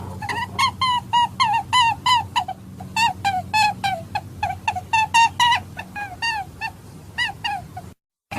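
Rabbit giving a fast run of short squeaky calls, about three or four a second, each bending up and then down in pitch, over a steady low hum; the calls cut off abruptly near the end.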